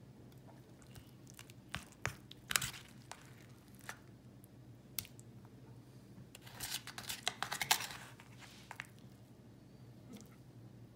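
A metal spoon scraping and clinking against an aluminium foil pie tin while scooping out pot pie filling through the crust: a few sharp clicks about two seconds in and a longer crinkly scraping spell around seven seconds in. A faint steady low hum runs underneath.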